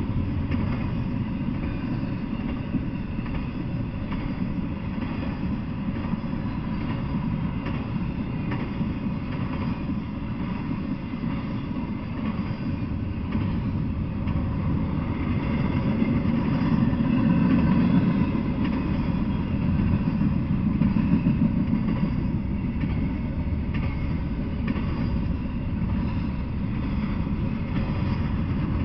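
Freight train of intermodal well cars with double-stacked containers rolling past, steel wheels on rails making a steady rumble that swells a little about two-thirds of the way through.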